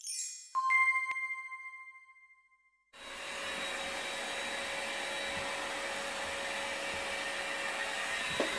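Chime sound effect: a quick cascade of high tinkles, then a clear bell-like ring that fades away over about two seconds. After a brief silence, a steady even hiss of room noise with a faint steady hum starts about three seconds in and carries on.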